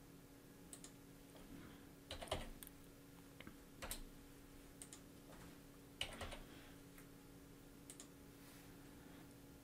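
Computer keyboard keys tapped in a few short, scattered bursts, faint, over a steady low hum.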